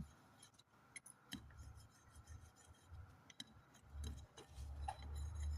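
Faint, scattered light clicks and taps of small turbo parts being handled, with a low rumble coming in near the end.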